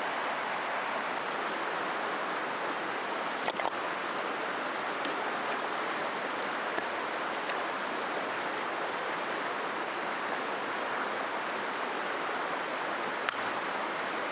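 River water flowing steadily, a continuous rushing sound, with a few faint sharp clicks over it.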